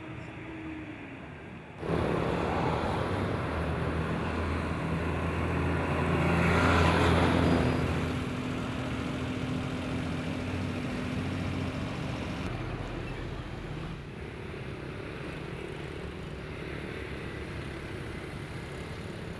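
Engine noise of a motor vehicle passing by: it comes in suddenly, swells to its loudest a few seconds later, then fades to a lower steady rumble.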